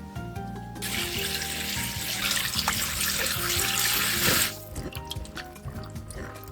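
Water running from a tap for about four seconds, starting about a second in and shut off abruptly.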